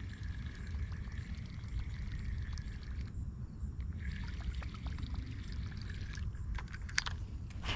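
Whopper Plopper 60 topwater lure being retrieved across the surface, its spinning tail churning and gurgling the water, over a steady low rumble. A few sharp clicks come near the end.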